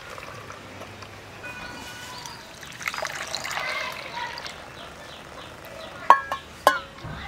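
Liquid jelly mix being poured into ice-candy cups, a soft trickle. Two sharp knocks near the end.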